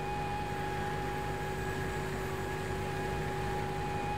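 Steady machinery-like hum with a constant whine made of a few held tones, unchanging throughout.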